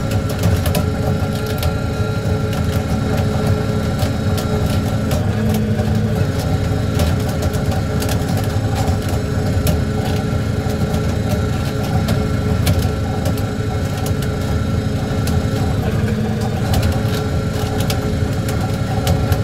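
Fishing trawler's diesel engine running steadily under way, a continuous low hum whose note shifts slightly twice, with faint scattered clicks.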